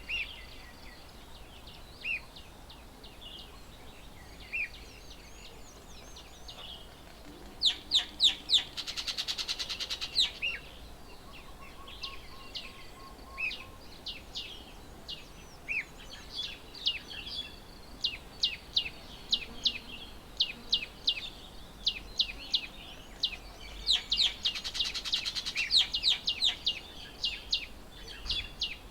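Several birds chirping and calling with many short, sharp chirps. Two fast, dense trills of about two seconds each stand out, one about eight seconds in and another near the end.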